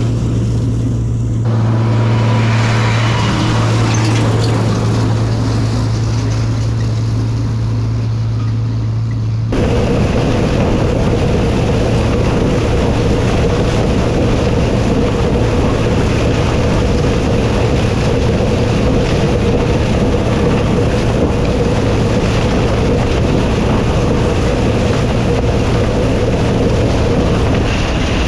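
Farm tractor pulling a flail mower, engine running steadily with a deep hum. About nine seconds in the sound switches abruptly to a noisier, rougher running with a steady whine on top.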